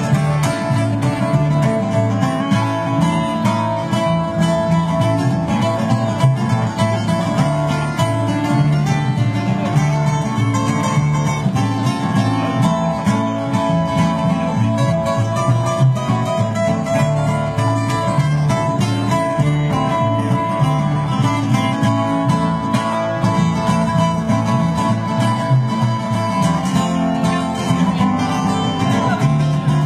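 Live acoustic bluegrass-style instrumental: two acoustic guitars picking and strumming over an upright bass walking a steady pulsing bass line, with no vocals.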